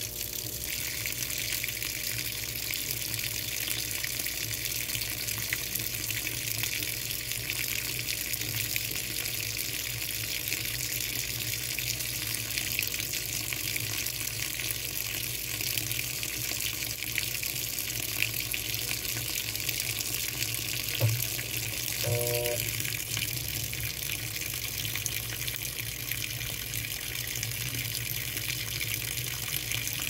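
Top-loading washing machine filling: a stream of water pours from the inlet into the drum and splashes onto the laundry, steady throughout, with a low hum underneath. About two-thirds of the way through there is a brief click, then a short tone.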